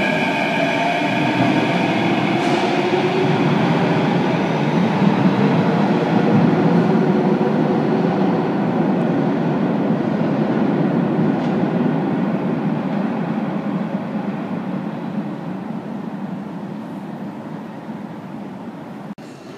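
Athens Metro train pulling out of the station and running off into the tunnel: a steady rumble of wheels and traction motors that fades away over the last several seconds. A faint motor whine dies out right at the start.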